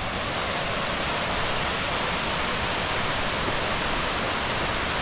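Steady rush of water from a stream.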